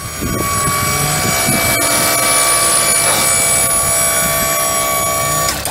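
Hydraulic pump of a mini truck's dump-bed lift running with a steady whine, cutting off abruptly near the end.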